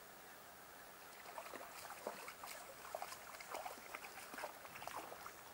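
Bullhead catfish splashing at the water's surface as it is reeled in, a run of faint, irregular splashes starting about a second in.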